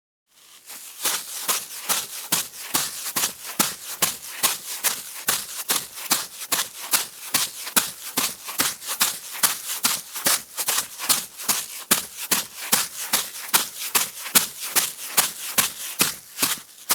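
A woman's bare feet stepping on wet sand: a long run of quick, even footsteps, each a short slap with a wet crunch.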